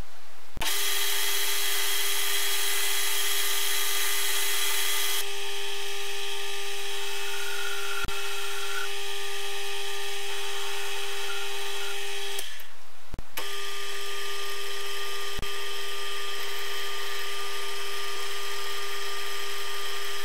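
Small metal lathe running with its chuck spinning: a steady whine with hiss. It breaks off about twelve seconds in and starts again under a second later.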